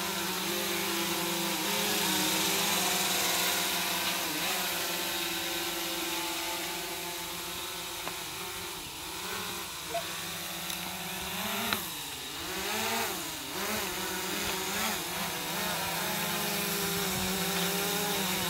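Quadcopter drone's propellers buzzing steadily as it hovers, the pitch wavering up and down a few times past the middle as the motors speed up and slow down while it manoeuvres.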